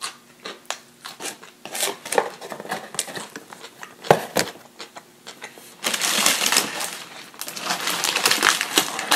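Close-miked eating: a string of sharp clicks and smacks of chewing and handling food, then from about six seconds in a dense crinkling of a paper food wrapper being handled and opened.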